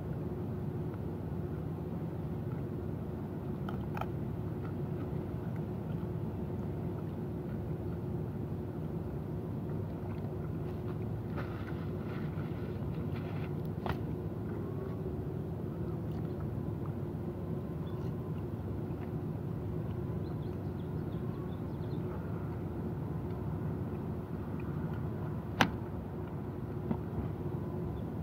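Steady low machine hum with a few fixed low tones, with a few light clicks and one sharp click about three seconds before the end.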